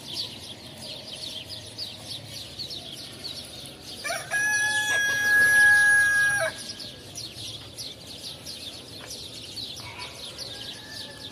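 A rooster crowing once, loud and long, about four seconds in, followed near the end by a fainter crow from another rooster. Steady high chirping runs in the background.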